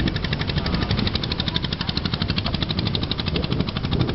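A boat's engine running steadily, a rapid, even knocking beat over a low rumble.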